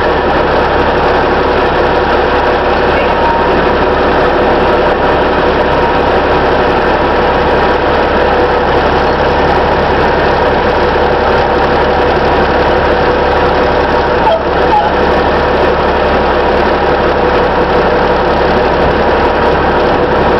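Rear-load garbage truck's diesel engine running steadily as the truck reverses, heard from inside the cab, with a steady high tone over the engine noise.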